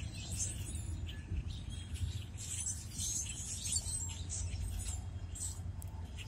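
Many small birds chirping over the low, steady rumble of a passing freight train's diesel locomotive.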